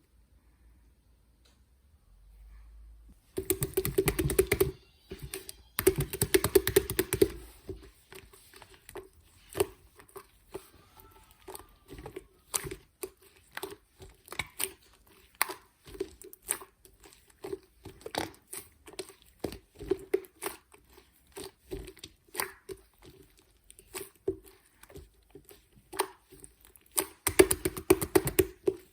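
Hands squishing and poking slime: a run of sticky clicks and crackling pops, with dense flurries of crackles about three seconds in, around six seconds in, and near the end.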